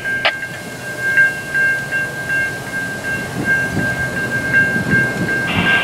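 Railway crossing warning bell ringing in steady, regularly spaced dings about two to three times a second, over a low rumble. The crossing's automatic warning devices have been reported defective.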